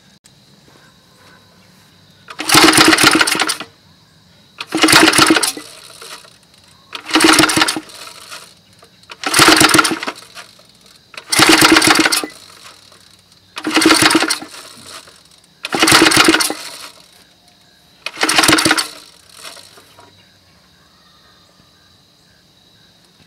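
Small piston-valve gasoline engine being pull-started on its recoil starter: eight pulls about two seconds apart, each cranking it over for about a second without the engine catching. It is hard to start, being picky about its fuel mixture.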